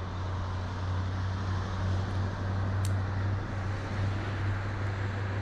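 A steady low engine hum with the wash of road traffic, and a single short click about three seconds in.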